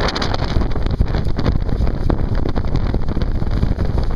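Strong wind buffeting the microphone on a small sailboat under way in a blow, with water rushing past the hull. Many short gusts and slaps break through the steady rush.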